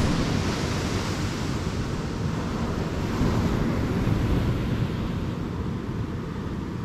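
Wind buffeting the microphone over the steady wash of waves.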